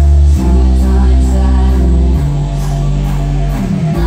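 Loud music with heavy, sustained bass notes that change every couple of seconds, and a falling bass slide with a brief drop-out just before the end.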